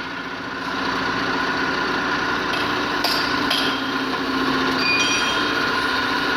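Machine-shop machinery running with a steady hum, with a couple of sharp metallic clicks about three seconds in and a brief metallic ring about five seconds in.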